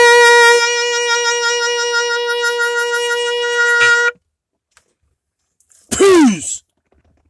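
1953 Pan American student trumpet with an Olds Mendez mouthpiece holding one long final note with a light pulsing vibrato, stopping cleanly about four seconds in. About six seconds in there is a short, loud voice sound that slides steeply down in pitch.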